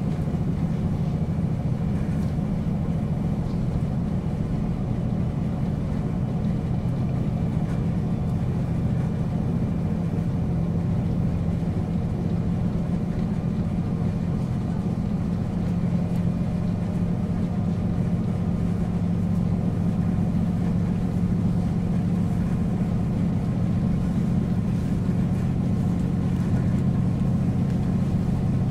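Running sound of a JR Hokkaido KiHa 40 series diesel railcar: a steady diesel engine drone over low rumbling running noise, growing a little louder in the second half.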